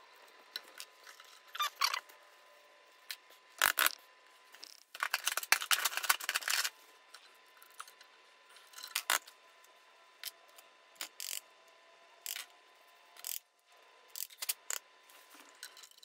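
Metal air-compressor fittings being handled and threaded together by hand: scattered clicks, taps and scraping, with a scratchy rustle lasting about two seconds in the middle.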